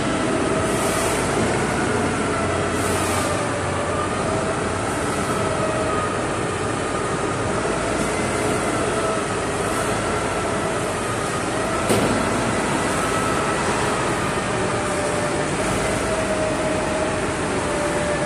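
Steady machinery drone with a faintly wavering whine, and one sharp knock about twelve seconds in.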